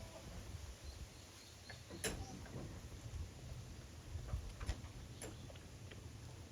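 A few sharp clicks and knocks over a low rumble. The loudest comes about two seconds in, and several lighter ones follow near the end.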